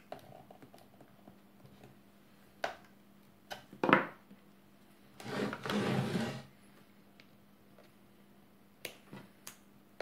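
Small clicks and taps of metal pins being pushed into the bass end of a melodeon and the instrument being handled, with a louder knock about four seconds in. A soft rushing sound lasts about a second just past the middle.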